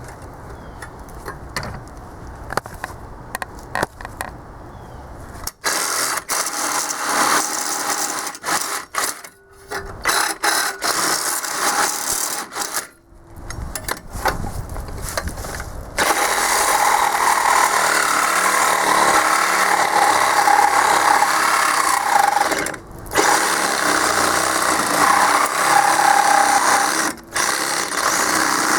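Cordless reciprocating saw cutting steel on an air compressor's tank. After a few seconds of quieter clicking, the saw runs in short stop-start runs, then cuts steadily with a whine through the second half.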